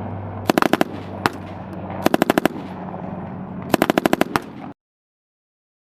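Automatic gunfire in short bursts: three rapid bursts of about five to seven shots each and one single shot between them, over a steady low hum. It cuts off suddenly near the end.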